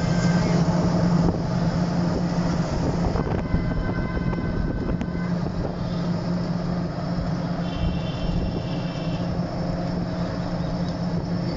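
Steady running noise of a moving vehicle heard from inside, a continuous low hum under an even rush of road and engine noise.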